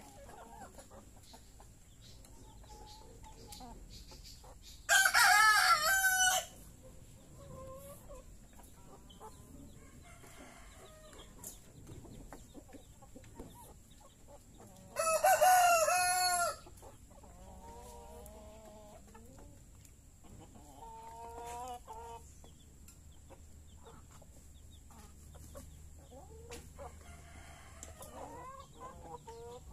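Rooster crowing twice, about ten seconds apart, each crow lasting about a second and a half and far louder than the rest. Between and after the crows, hens cluck softly.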